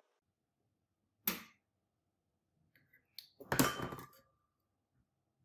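Wooden holder stick with crocodile clips knocked against a glass beaker: one sharp knock about a second in, then a louder cluster of knocks and clatter with a brief ringing tone, the loudest moment.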